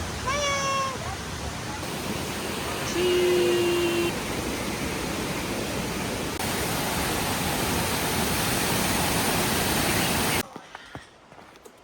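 Rushing water, a steady loud hiss like a waterfall or cascading creek, that cuts off sharply about ten seconds in. Brief voice sounds are heard near the start, and a short held tone comes about three seconds in.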